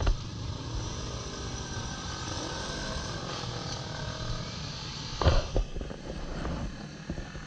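Racing superbike engines running in the pit lane as bikes ride out, heard as a steady mixed engine noise with faint rising and falling pitches. Sharp knocks sound at the very start and twice about five seconds in.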